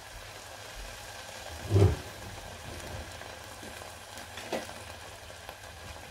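Thick tomato currywurst sauce simmering in a steel pot, with a short low plop about two seconds in and a fainter one later as bubbles burst through the sauce, over a quiet steady background hum.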